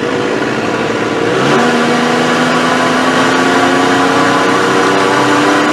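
2009 Nissan Frontier engine pulling on a road drive. About a second and a half in the note changes, then climbs slowly and steadily as the truck accelerates. This is the truck the mechanic has diagnosed with a clogged catalytic converter that costs it power.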